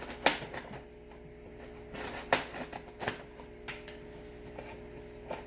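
Scissors cutting clear tape on a cardboard shipping box: a few scattered sharp snips and scrapes, over a faint steady hum.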